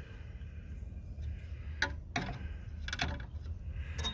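A few scattered light clicks of hand tools on metal fittings, over a low steady hum.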